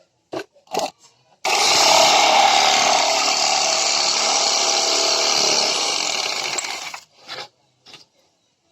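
iBELL IBL JS10-70 700 W electric jigsaw switched on and running for about five and a half seconds, starting abruptly and winding down before it stops. A few short handling knocks come before and after it.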